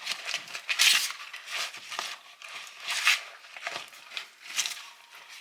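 Stirring crushed dry ramen noodles through a thick mix of sweetened condensed milk, powdered sugar and peanut butter in a mixing bowl: irregular stirring strokes, the louder ones roughly once a second.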